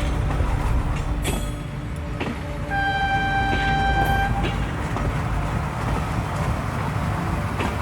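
A train running with a steady rumble and scattered clicks, and a single steady horn blast about three seconds in lasting about a second and a half.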